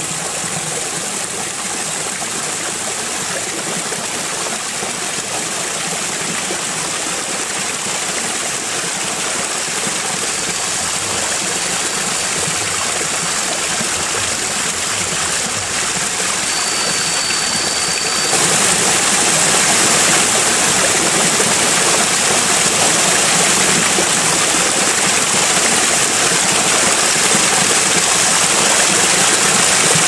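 Steady rush of flowing water, stepping up louder and brighter about eighteen seconds in to the splash of water pouring over a small log weir into a pool. A faint high whistling tone holds for several seconds just before the step.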